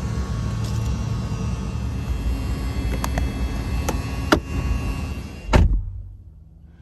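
Road and tyre noise inside the cabin of a Polestar electric car while driving: a steady low rumble with a few sharp clicks or knocks, the loudest a thump about five and a half seconds in. The sound then cuts off abruptly, leaving a much quieter hum.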